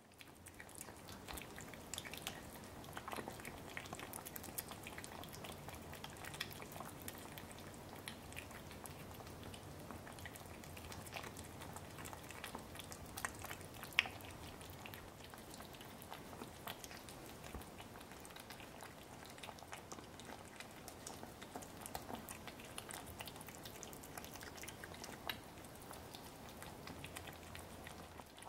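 Two kittens eating tuna from a saucer: faint wet chewing and licking with scattered small clicks, and one sharper click about halfway through.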